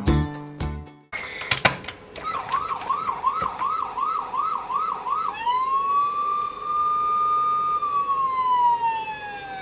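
Electronic siren sound effect from a toy construction vehicle's built-in sound module, set off with a click. It starts as a fast warbling siren, about two to three cycles a second, then switches to a slow wail that rises, holds and falls away near the end.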